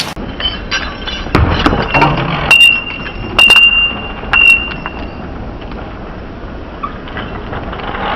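BMX bike's metal parts knocking and clinking: about half a dozen sharp knocks over the first five seconds, three of them ringing briefly with a high metallic tone. After that only a steady low rumble remains.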